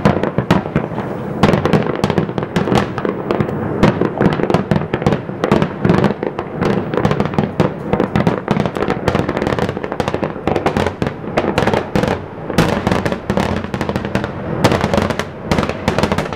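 Fireworks display: aerial shells bursting in rapid, overlapping succession, a dense run of many sharp bangs each second.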